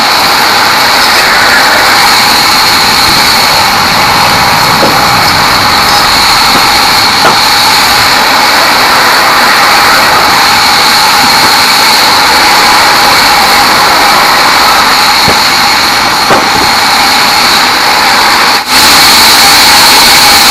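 Large band sawmill running steadily at full volume, its blade sawing through a teak log, with a constant high whine over dense noise. There is a momentary drop-out near the end, after which it carries on.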